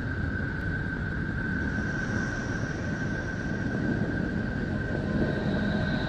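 NASA sonification of Voyager 2's plasma and magnetic-field data from its Neptune flyby: a steady rushing noise that sounds like the ocean, with one held high tone over it.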